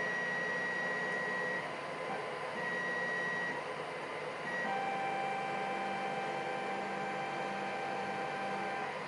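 Steady electronic whine over a constant hiss, its pitch jumping a few times: a high tone at first, then a lower one from about halfway through.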